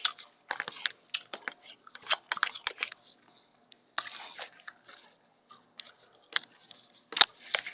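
A person chewing and crunching a mouthful of mixed salad, in irregular short crunches.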